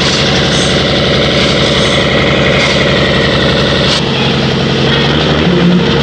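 Large four-wheel-drive cargo truck's engine running steadily at idle, heard up close.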